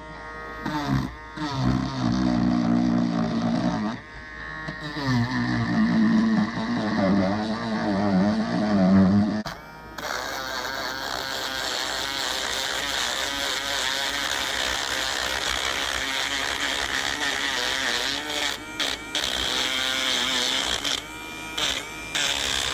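Handheld rotary tool with a sanding drum, sanding a wooden toy body. For the first half its pitch wavers and sags as it is pressed into the wood. About ten seconds in it settles into a steadier, higher whine, and near the end it cuts in and out several times.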